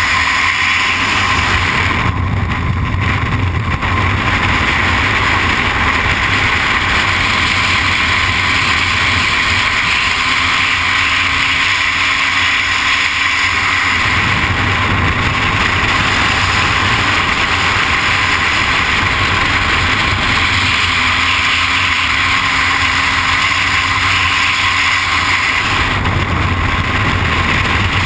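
Steady rush of freefall wind blasting over a helmet-mounted camera's microphone during a skydive.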